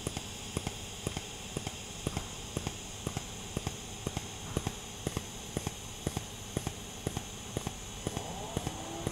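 Pulsed TIG welding arc: a steady arc hiss with a sharp tick about twice a second as the current pulses between peak and background.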